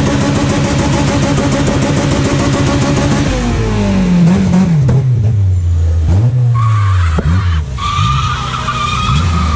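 Car engine held at high revs during a burnout, with tyre-spin noise, for about three seconds; then the revs drop and the engine is blipped up and down repeatedly. A high steady whistling tone comes in twice in the second half.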